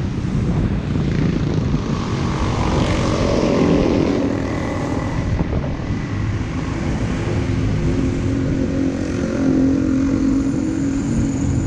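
Motorbike engine running while riding, with a steady drone that grows stronger in the second half, over low rumbling wind noise on the microphone.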